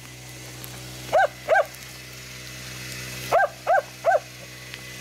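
Grey elkhound hunting dog barking at a shot moose: short, high barks, two about a second in and then three in quick succession past the three-second mark.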